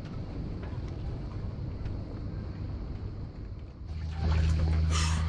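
Steady low rumble of a boat, with wind on the microphone. About four seconds in it gives way to a louder steady low hum, and water splashes as a swimmer goes into the sea beside the hull.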